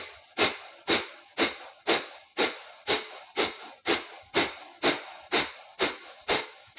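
Kapalbhati breathing: sharp, forceful exhalations through both nostrils, about two a second, each a short hiss that starts suddenly and tails off.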